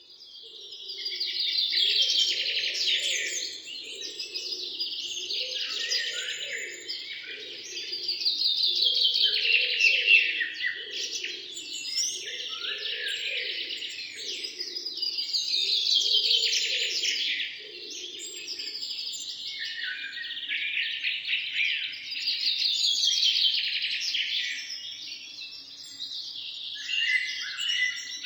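Many birds chirping together in a dense chorus of rapid high notes, swelling louder and fading back in waves about every six or seven seconds. A fainter low pulsing sound runs underneath and stops about two-thirds of the way through.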